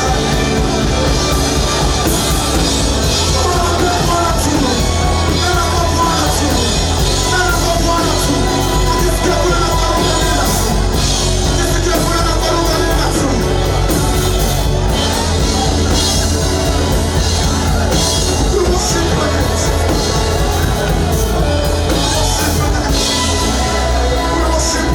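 Live worship music with amplified singing over a band with steady bass, loud and continuous.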